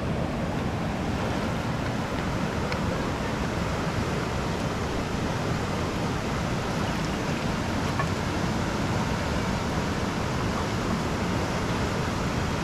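River water rushing steadily over a shallow rocky rapid, an even roar. A few faint clicks sound over it, about three seconds in and again near eight seconds.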